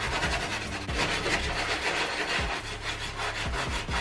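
Wooden-backed bristle brush scrubbing a wet, foamy leather sneaker (an Air Jordan 4) with quick, even back-and-forth strokes.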